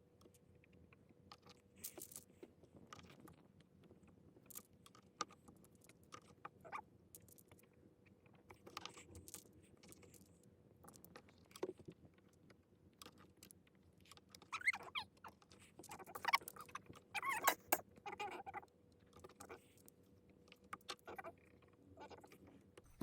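Faint scattered clicks and light rattles of small objects being handled, over a faint steady hum. A few soft voice-like sounds come between about 15 and 18 seconds in.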